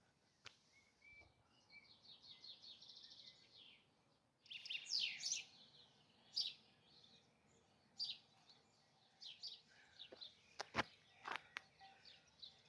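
Songbirds singing: a rapid high trill, then several brighter song phrases and short calls, with a couple of sharp clicks near the end.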